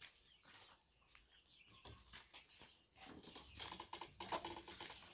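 Near silence, with faint scattered clicks and taps in the second half and a few faint animal calls.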